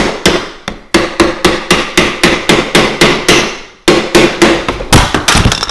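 Repeated hard knocks, about three to four a second in three runs with short pauses, as a glued ABS pipe fitting is pounded to force it into its socket; the plastic pipe rings hollowly with each blow.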